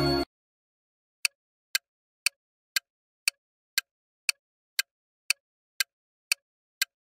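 A chiming jingle cuts off abruptly just after the start. About a second later a countdown timer's clock-tick sound effect begins: sharp, even ticks, two a second, with silence between them.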